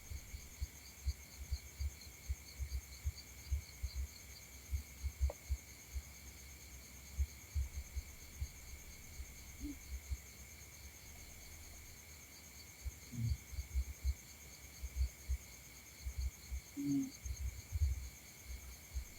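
Faint, steady chirring of crickets, pulsing rapidly, with irregular low thumps throughout and a couple of brief low hums near the middle and end.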